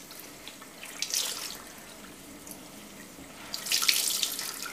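Gentle stream of tap water running into a sink as a wet woollen shawl is rinsed under it, with two louder splashes, about a second in and near the end.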